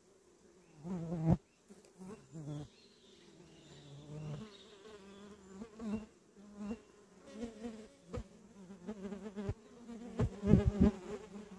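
Flying insects buzzing close to the microphone in repeated passes that swell and fade. The buzzing is loudest about a second in and again near the end.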